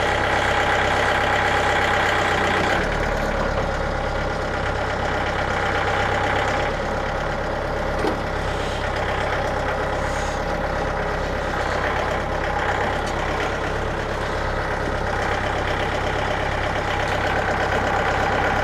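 An engine running steadily at idle, with no revving, and a single small click about eight seconds in.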